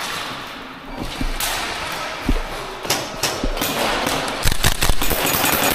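Airsoft gunfire: scattered sharp cracks, then a quick run of several shots about four and a half seconds in.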